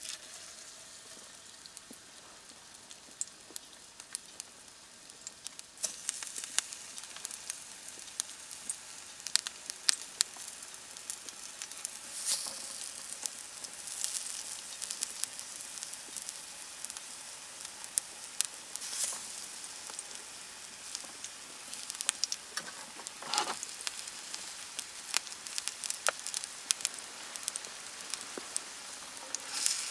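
Hot oil sizzling in a frying pan, a steady hiss with many small sharp pops and spits; it gets louder about six seconds in.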